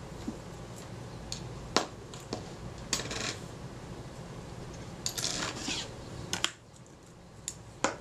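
Small metal shutter rings from a Synchro-Compur camera shutter being handled and set down: several sharp, light metallic clicks and clinks, with a short rattle about five seconds in.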